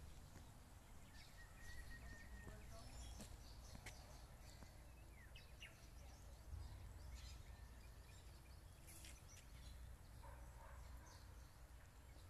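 Near silence outdoors: a low steady rumble with scattered faint bird chirps.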